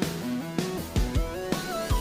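Background music: plucked guitar notes over a steady kick-drum beat.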